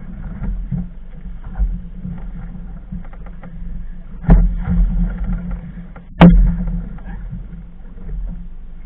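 Small motorboat's steady low drone at sea, broken by two loud knocks: one about four seconds in and a sharper one about six seconds in.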